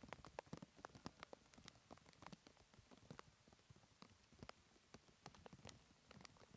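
Faint, irregular ticking and pattering of raindrops landing close to the microphone, several small taps a second.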